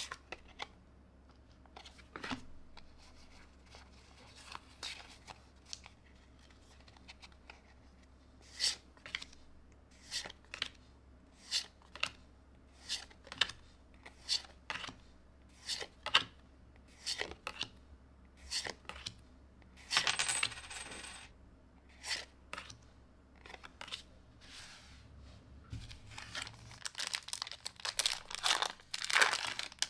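Pokémon trading cards being flicked one at a time from the front of a small stack to the back, each move a sharp card snap, coming about one every second. Near the end a foil booster pack is torn open with a rustle.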